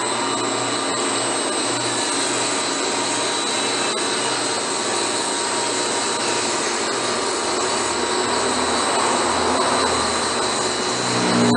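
Workshop vehicle lift running as the car is lowered, a loud steady mechanical noise with a faint high whine, swelling slightly near the end.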